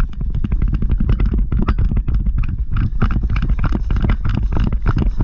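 Rapid, irregular footsteps and clattering gear of an airsoft player on the move, over a heavy low rumble.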